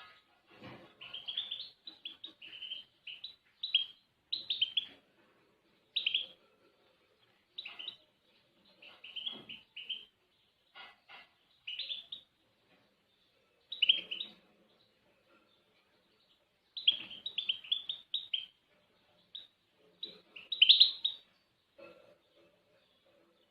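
A small songbird singing in short bursts of quick, high chirps and twitters, each phrase about a second long, with brief pauses between.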